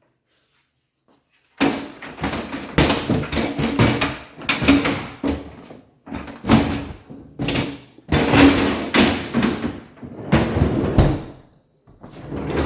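Freezer drawer of an LG French door refrigerator rolled open and shut several times on its glide rails and gear, about a second per stroke with short pauses between. This is a test run after the fallen bar and gear were screwed back in.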